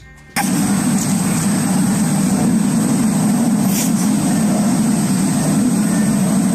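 A loud, steady low rumble with a thin high whine above it, cutting in suddenly about a third of a second in.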